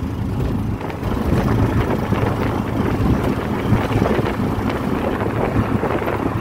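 Motor tricycle (keke) on the move: its small engine runs steadily under continual road noise, with frequent short rattles from the vehicle.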